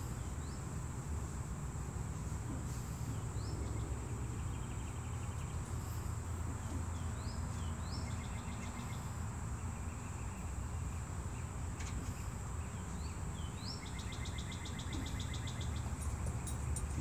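Outdoor rural ambience: a steady high insect drone over a low rumble, with a bird singing a short phrase about four times, each a quick rising note followed by a rapid trill.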